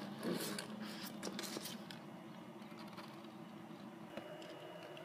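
Faint scattered clicks and rustling as an Eastern box turtle bites at a piece of fruit held in the fingers, mostly in the first two seconds. A faint, high, steady tone comes in about four seconds in.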